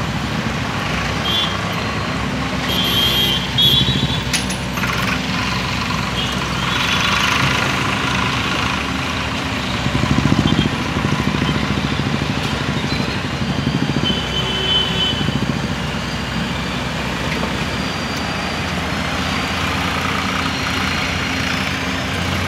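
Komatsu hydraulic excavator's diesel engine running steadily while working, its note swelling louder about ten seconds in. A few short high-pitched beeps sound over it.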